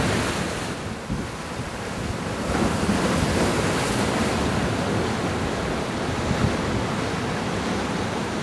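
Wind buffeting the microphone over the wash of waves against a harbour breakwater.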